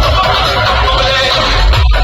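Loud electronic dance music with a steady, deep kick-drum beat, played over a DJ sound system. There is a brief break in the music near the end.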